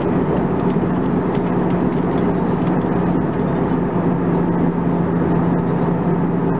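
Airbus A320-214 cabin noise in cruise, heard from a window seat beside the engine: a steady, even rush of engine and airflow with a constant low hum.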